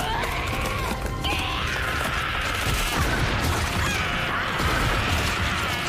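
Anime battle soundtrack: dramatic music under crashing, booming impact effects and a woman's long, strained scream of pain.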